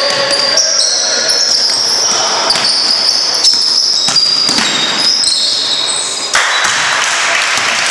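Basketball game sounds in a large hall: a ball bouncing on the wooden floor, sneakers squeaking and voices echoing. About six and a half seconds in, a broad burst of crowd noise rises as a shot goes in.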